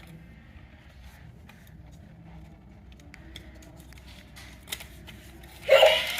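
Faint clicks and small rattles from a battery-operated toy dog as it is handled, then near the end the toy's electronic tune starts suddenly and loudly.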